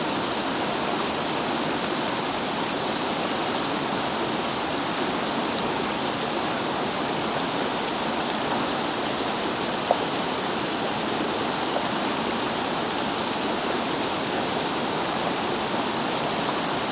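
Steady rush of river water tumbling over rocks, with one faint brief tick about ten seconds in.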